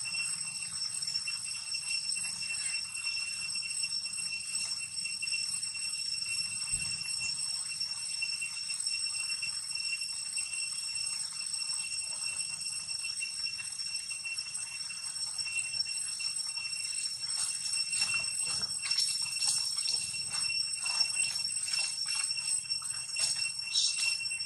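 A steady, high-pitched insect drone at one pitch with overtones, holding without a break. In the last several seconds, dry leaves crackle and rustle as a monkey walks over them.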